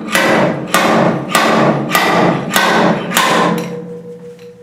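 Slide hammer of a stud-welder dent puller striking its stop, about six sharp metallic knocks a little under two a second, each with a short ring. The strokes pull on studs welded to a dented Triumph Spitfire sheet-steel body panel to draw the dent out, and they fade and stop after about three and a half seconds.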